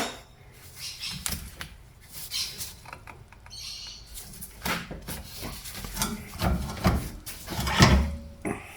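Scattered clicks, clunks and scrapes of strut parts and hand tools being handled during a shock absorber strip-down, with a short scraping hiss a little after three seconds and the loudest knock near the end.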